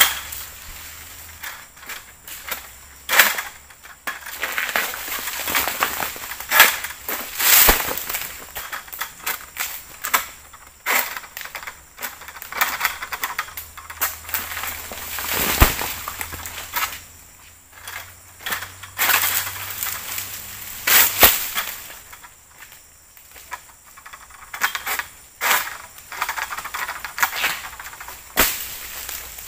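Irregular sharp cracks and snaps of an egrek, a long-poled harvesting sickle, cutting into oil palm fronds and fruit-bunch stalks, with crackling leaves. A couple of heavier thuds come about a third and halfway through.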